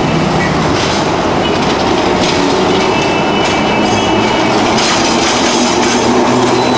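Electric articulated tram rolling past at close range on curved track, its wheels clattering on the rails. From about three seconds in there is a thin, high wheel squeal from the curve.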